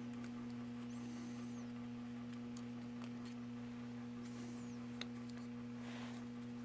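Steady low electrical hum, with a few faint clicks and scrapes of a screwdriver on steel as the bolt screw is worked out of a cap-and-ball revolver's frame.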